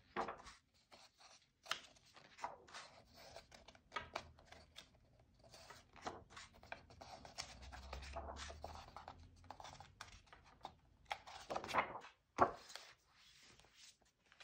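Paper pages of a paperback colouring book being turned one after another, each flip a short rustle. About 12 seconds in come the two loudest slaps, as the book is closed.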